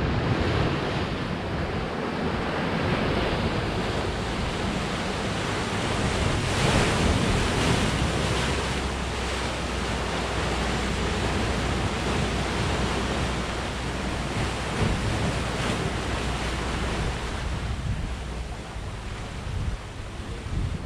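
Ocean surf surging and breaking into a narrow rock cleft, a steady rush that swells louder about a third of the way through, with wind rumbling on the microphone.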